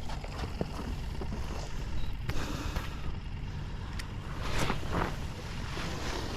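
Wind rumbling on the microphone, with scattered scuffs and clicks and a louder brushing noise about four and a half seconds in.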